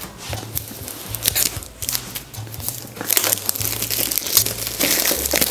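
Clear plastic shrink-wrap film being peeled and pulled off a smartphone's cardboard retail box, crinkling and crackling irregularly.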